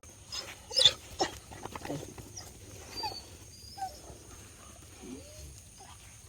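Farm animals making short calls and whines, with two sharp knocks about a second in.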